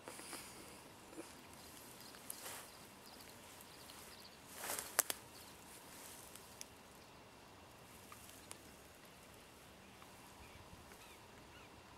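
Quiet outdoor background with a few brief rustles; the loudest comes about five seconds in and ends in two sharp clicks.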